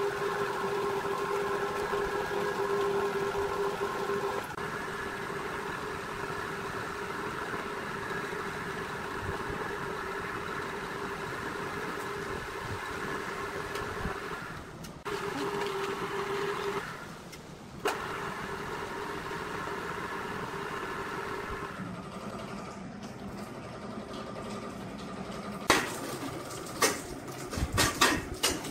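Electric roller tube-bending machine running: a steady motor hum and gear whine as a steel tube is rolled through its rollers, cutting out briefly twice past the middle. Near the end, several sharp metal clanks as bent steel pieces are handled on a steel worktable.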